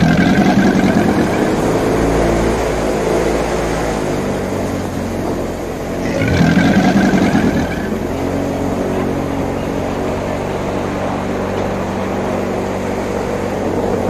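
Airboat engine and propeller running steadily, swelling louder twice: at the start and again about six seconds in.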